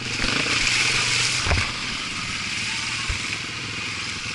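Dirt bike engine running, heard close up from the bike with a steady rushing noise over it. A single knock comes about a second and a half in.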